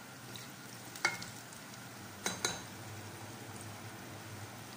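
Diced potatoes frying in hot oil in a metal pot, a steady sizzle. A perforated metal skimmer clinks against the pot with a short ring once about a second in and twice in quick succession just past two seconds.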